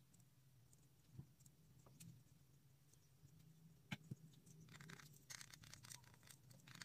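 Near silence: faint clicks and light scraping of an aluminium soda can being handled, over a low steady hum. The scraping thickens about two-thirds of the way through.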